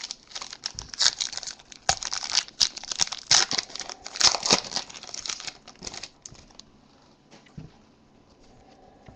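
Foil wrapper of a 2013 Panini Select football card pack being torn open and crinkled by hand: dense crackling for about six seconds, then only faint rustling.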